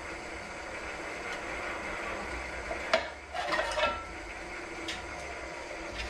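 Old pedestal drill running steadily while a 22 mm bit cuts through thin sheet metal through a piece of cloth, the trick that keeps a large bit from drilling a three-sided hole. There is a sharp click about three seconds in, then a brief metallic scraping and chatter from the bit in the metal, and another click near the end.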